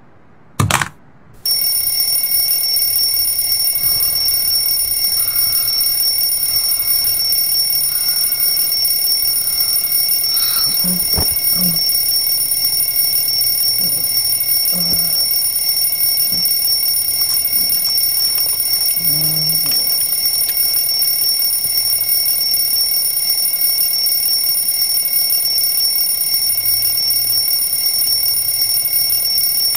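Electronic alarm clock going off: a sharp click, then about a second and a half in a continuous, piercing high-pitched electronic tone that sounds without a break.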